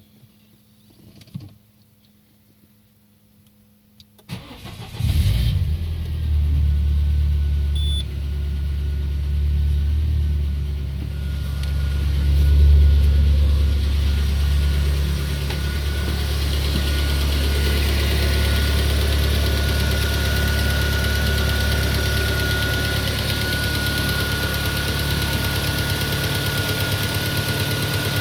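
Peugeot 407 2.2 petrol four-cylinder engine starting from cold about four seconds in, after a few small clicks, then running at fast idle with a steady whine. This is the cold-start knock that appeared after new piston rings and lapped valves, which the owner takes for the cam phaser.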